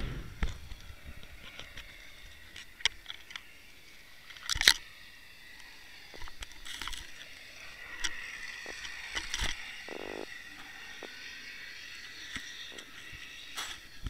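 Underwater sound picked up by a camera hanging near a sandy bottom: a faint steady hiss of water with scattered sharp clicks and knocks, the loudest about four and a half seconds in.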